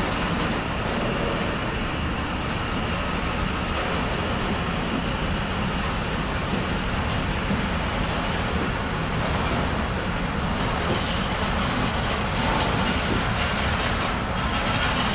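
Freight train wagons rolling past at close range: a steady noise of steel wheels on the rails, a little louder and brighter near the end.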